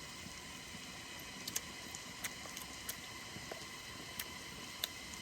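Meat sizzling on a hot stone: a faint, steady hiss with small crackles popping every second or so.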